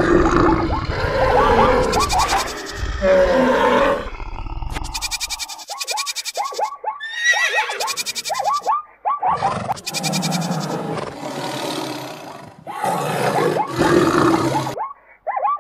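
A stampede soundtrack of mixed animal sound effects: roars, grunts and bleating calls in bursts of a second or two with short gaps, some bursts made of quick rising-and-falling cries repeated several times a second.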